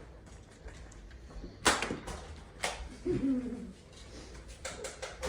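Sharp plastic clacks of Nerf blasters in a small room. Two loud single clacks come about a second apart, then a quick run of lighter clicks near the end. A brief voice-like cry is heard between them.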